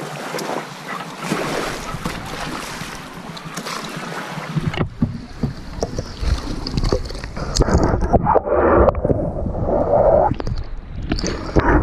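Sea water sloshing and splashing against a camera held at the surface. About five seconds in, the sound turns suddenly muffled and dull, with irregular low thumps, as the camera's microphone goes into the water.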